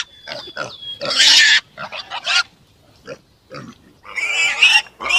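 Pigs grunting and squealing: a string of short calls, with a loud high squeal about a second in and a longer one about four seconds in.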